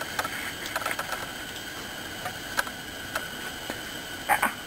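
Faint clicks and rustling of hands working a hook free from a small catfish, over a steady background hiss. There is a sharper click about halfway through and a couple more near the end.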